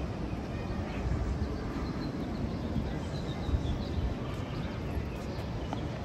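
Outdoor walking ambience: indistinct voices of passers-by over a steady low rumble, with one short knock about three and a half seconds in.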